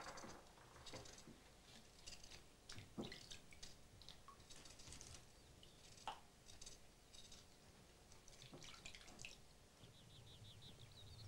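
Faint scattered clicks and light taps of cutlery and crockery at a kitchen table, over quiet room tone. Near the end a bird gives a faint quick trill.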